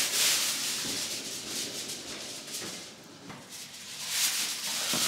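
Rustling and rubbing handling noise, loudest at the start and dying away about three seconds in, with louder handling noise and faint knocks again near the end.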